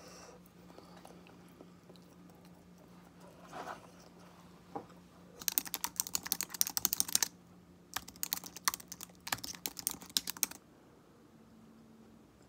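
Rapid keyboard-like clicking, as of fast typing, in two bursts of about two seconds each with a short gap between. A faint steady hum underneath stops as the second burst ends.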